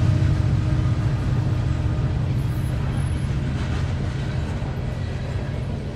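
Norfolk Southern freight train with hopper cars passing, a steady low rumble that slowly grows fainter.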